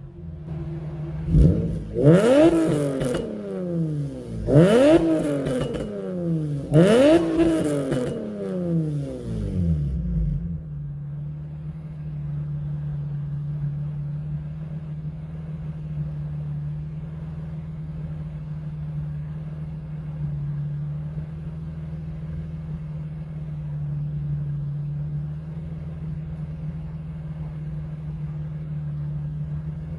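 Nissan G35 coupe's 3.5-litre V6 breathing through ISR resonated test pipes, revved three times in quick sharp blips, each rising and falling away, then settling into a steady idle about ten seconds in.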